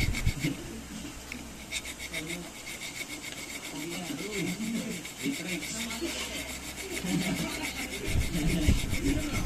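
Hand file rasping on steel in rapid, even back-and-forth strokes, taking down excess metal so a barrel can seat flush in its channel.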